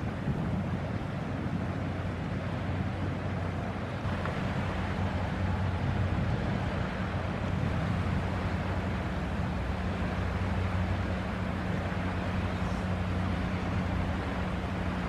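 Steady low drone of an inland cargo ship's diesel engine as it passes, which grows stronger about four seconds in. Under it runs a constant rush of wind on the microphone and water washing.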